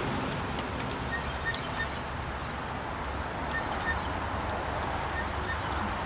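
Light clicks of one-handed bar clamps being handled and ratcheted onto a sawmill band wheel, over steady outdoor background noise with a low rumble. A few short high chirps come about a second in, again around three and a half seconds, and near five seconds.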